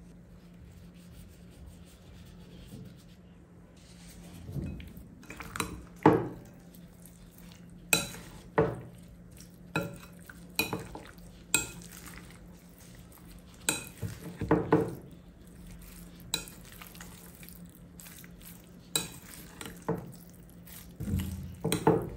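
Metal spoon mixing spiced raw chicken in a glass bowl: irregular clinks and knocks of the spoon against the glass, starting about four seconds in.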